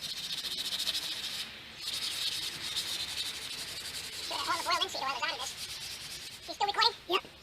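Scratchy rubbing strokes of paint being worked onto a wooden deck rail, with a short break about one and a half seconds in. A bird calls in short warbling phrases near the middle and again near the end.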